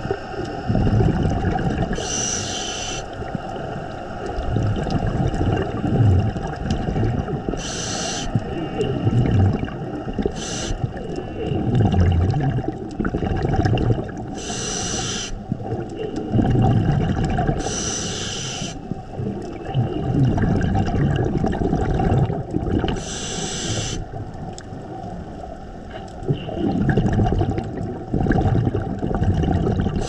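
Scuba breathing heard underwater through a camera housing: a regulator hiss on each inhalation every few seconds, with low bubbling and rumbling between them.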